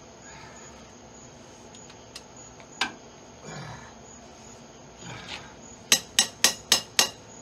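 Metal hand tools working a cylinder head bolt: a couple of single knocks, then five sharp metallic clicks in quick succession, about four a second, near the end.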